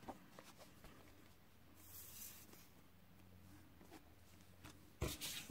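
Near silence with a faint steady low hum and soft paper handling. About five seconds in come a few sharp taps and rustles of card stock being handled.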